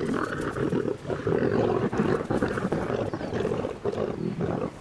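Several lions growling as they feed together on a wildebeest kill: a continuous, rough din with only brief breaks.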